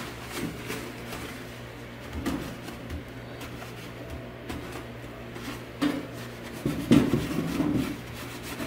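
Handling noise from work on a coffee grinder's parts: scattered knocks and scrapes, busiest and loudest about seven seconds in, over a steady fan hum.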